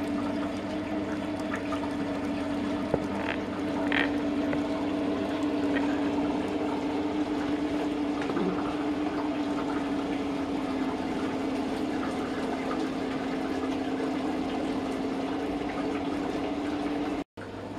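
A thin stream of freshly distilled apple brandy trickling from a copper pot still's outlet pipe into a steel funnel and glass demijohn, over a steady low hum.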